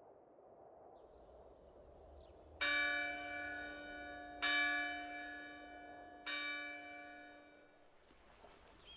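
A church bell struck three times, just under two seconds apart. Each stroke rings on and fades slowly.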